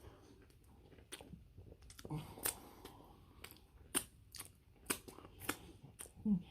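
A person chewing a chili-covered hot dog bun close to the microphone: irregular wet mouth clicks and smacks, with a short hummed voice sound near the end.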